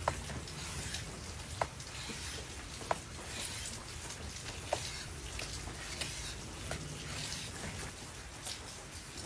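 Large kitchen knife slicing through a grilled steak, its edge clicking sharply on the cutting board at the end of each cut, about seven times, over a steady crackly hiss.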